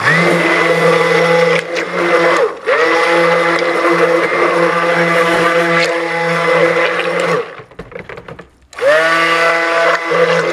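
Handheld stick blender mixing cold-process soap batter with mica in a plastic pot. It runs in pulses: the motor spins up at the start, dips briefly about two and a half seconds in, winds down and stops for about a second near the eight-second mark, then spins up again.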